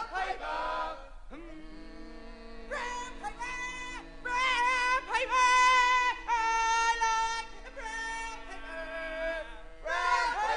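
Music: a short shouted line, then a singer holding long, wavering notes over a steady sustained chord. Shouting starts again near the end.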